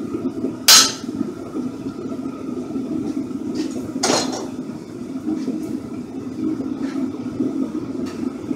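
Two sharp metallic clanks of steel on a blacksmith's anvil, one about a second in and a louder one about four seconds in, with a few fainter clinks between, over a steady low machine hum.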